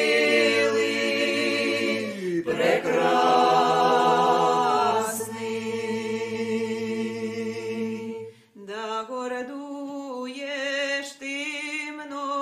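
Voices singing a Ukrainian song a cappella in harmony, holding long drawn-out notes. They break off about eight and a half seconds in, then start a new phrase.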